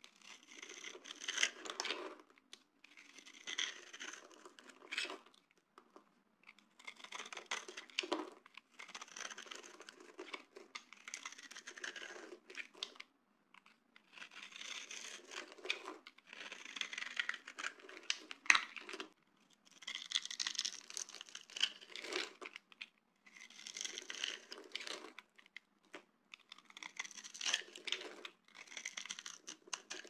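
Snap-off utility knife blade shaving grid-scored cubes off a dry bar of soap, each pass a crisp crunching scrape of a second or two. The strokes repeat with short pauses, about a dozen in all.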